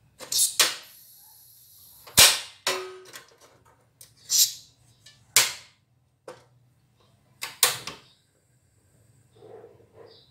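About nine sharp knocks and clanks at irregular intervals, one with a brief ringing tone a little under three seconds in.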